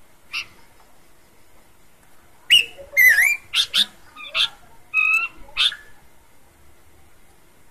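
Abbott's babbler singing. One short note comes early. About two seconds later there is a quick run of loud whistled notes, some sliding in pitch, mixed with rougher notes, lasting about three seconds.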